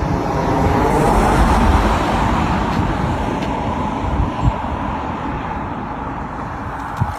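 A road vehicle passing close by, its engine and tyre noise swelling over the first couple of seconds and then slowly fading away.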